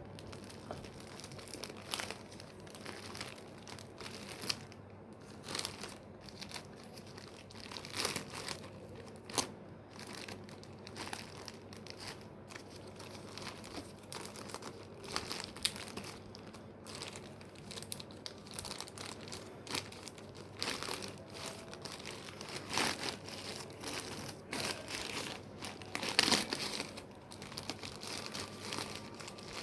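Parcel packaging being crinkled and torn open by hand, one-handed. Irregular crinkling and rustling with louder crackles now and then.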